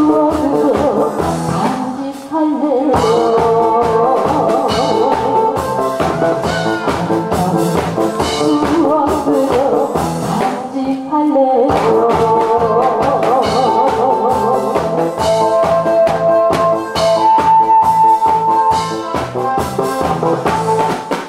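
A woman singing into a microphone over loud backing music with a steady drum beat.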